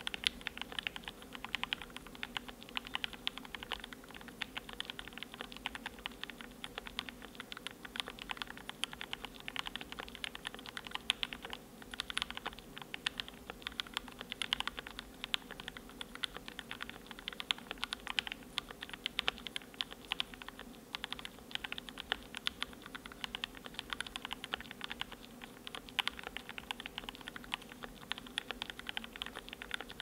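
Steady, fast typing on a KBD67v2 MKII custom 65% mechanical keyboard with a brass plate, PCB and plate foam, lubed and filmed Tealios v2 linear switches and lubed Durock v2 stabilizers under GMK keycaps: a dense, uneven run of keystroke clacks.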